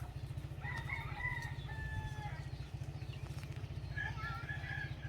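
A rooster crowing twice, each crow a long held call, with a steady low rumble underneath.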